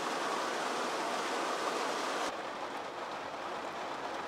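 Steady hiss of rain falling, which drops in brightness and softens slightly a little over two seconds in.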